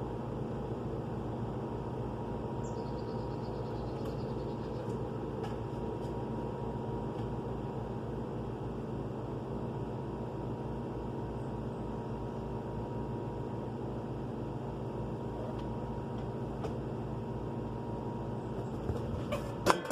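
Goodman heat pump outdoor unit running with a steady low electrical hum. A couple of sharp knocks come right at the end.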